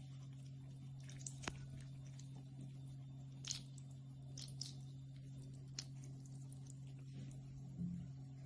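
Thin stream of tap water trickling into a sink, with scattered small drips and splashes as a kitten paws at it, over a steady low hum.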